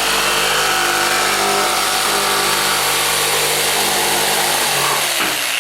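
Power saw running and cutting through a window sill. It starts abruptly, runs steadily, then winds down in pitch near the end as it is released.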